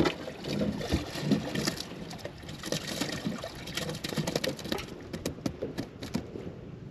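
Water sloshing and dripping, with a run of irregular sharp clicks and knocks, as a bass is lifted out of a boat's livewell. The splashing is loudest in the first couple of seconds.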